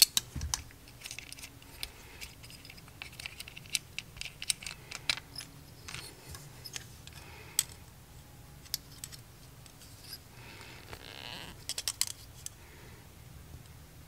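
Scattered sharp clicks and small metallic ticks from a Leatherman multitool's pliers gripping and bending a thin stainless steel float-switch bracket by hand, with a short scraping rub and a quick run of clicks about three-quarters of the way through.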